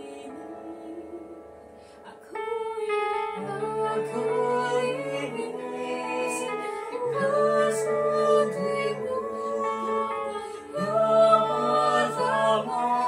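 Mixed vocal group of two men and two women singing in harmony, holding long chords with the men's low notes underneath. The singing swells louder about two seconds in.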